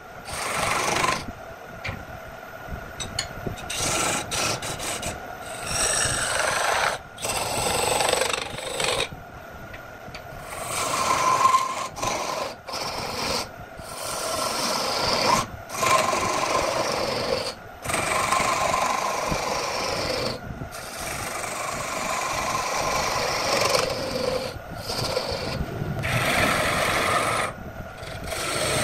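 Hand turning tool cutting a spinning wooden vase blank on a wood lathe: a rasping, scraping cut that comes in bouts of one to a few seconds, broken by brief near-silent gaps where the tool comes off the wood.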